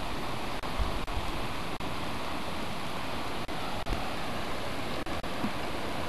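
Steady rushing of a shallow river running over stones, with a few low wind bumps on the microphone in the first second.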